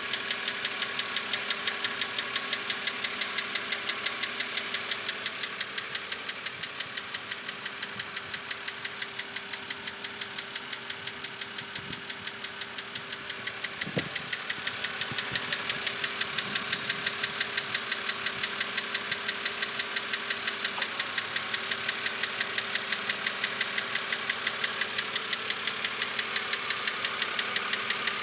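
2006 BMW Z4 3.0si's N52 inline-six engine running steadily with a sharp, regular knock about three times a second. The knock persists even after the hydraulic lifters were replaced.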